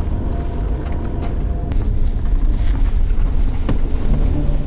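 Car driving on a gravel road, heard from inside the cabin: a steady low rumble of engine and tyres, with a couple of sharp clicks.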